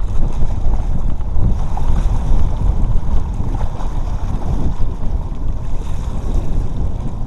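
Wind buffeting the action camera's microphone: a loud, uneven low rumble.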